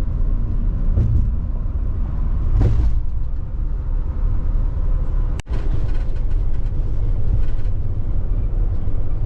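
Steady road and engine rumble of a moving vehicle, with a brief dropout about five and a half seconds in.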